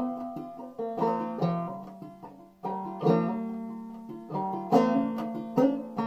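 Five-string banjo played clawhammer style in sawmill tuning (gDGCD, tuned lower): struck melody notes and brushed chords that ring and fade, with a brief break about halfway through.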